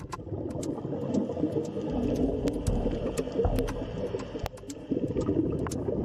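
Underwater ambience: a steady low wash of water with many scattered sharp clicks, several a second.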